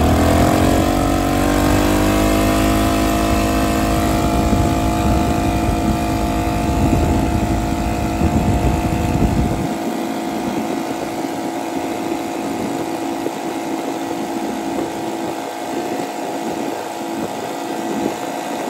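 Arctic Cat 650 V-twin ATV engine at full throttle under acceleration. The engine note climbs in the first couple of seconds, then holds a steady pitch while the quad keeps gaining speed on its automatic belt transmission. A low rumble underneath stops abruptly about halfway through.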